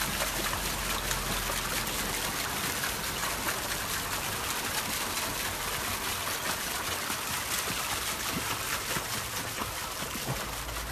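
Steady hiss of running, trickling water, with fine crackling splashes throughout.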